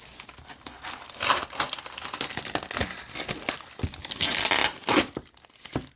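Crinkling and tearing of a heavily taped shipping package as it is pulled open by hand, in irregular bursts.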